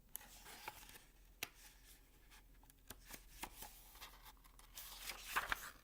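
Faint rustling of paper and scattered light clicks and taps, a picture book's pages being handled and turned, with a louder rustle near the end.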